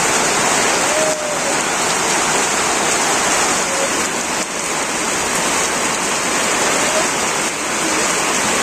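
Heavy rain pouring down steadily, a constant hiss of rain on corrugated tin roofs and a flooded concrete yard.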